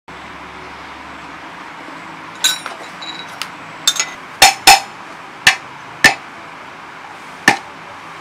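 A heavy cleaver chopping on a thick wooden cutting board: about eight sharp, single knocks at irregular intervals, starting a couple of seconds in, with a few lighter clinks among them.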